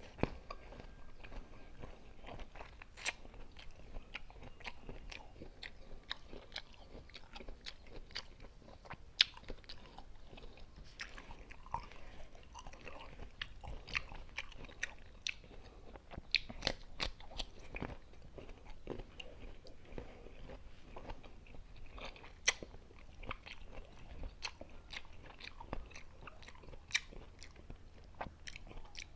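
Unripe green mango being bitten and chewed with many crisp, irregular crunches.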